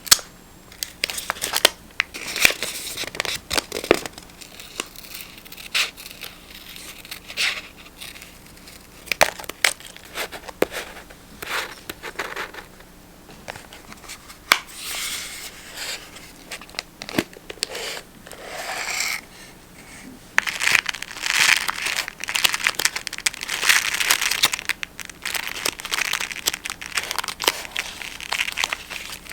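Paper being handled during journal decorating: crinkling, rustling and tearing, with many small sharp taps and clicks. The rustling becomes a longer continuous stretch near the end.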